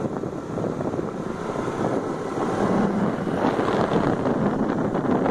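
Wind rushing over a phone's microphone on a moving motorcycle, with the motorcycle running underneath; it grows a little louder about halfway through.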